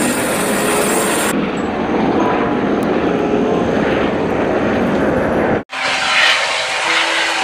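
Turbine helicopter running: steady engine and rotor noise. It breaks off for an instant about five and a half seconds in and comes back with a harsher hiss.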